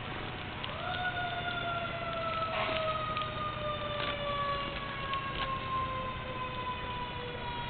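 Fire engine siren: its pitch climbs quickly, then falls slowly and steadily over several seconds.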